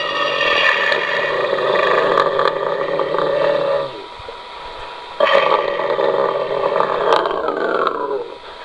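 Homemade dinosaur roar sound effect: a human voice altered to sound like a huge beast. It gives two long roars; the first stops about four seconds in, and the second starts a second and a half later and slides down in pitch at its end.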